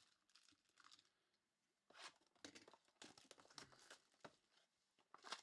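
Faint crinkling and rustling of a trading card pack's foil wrapper and the cards being handled, in short scattered bursts that begin about two seconds in.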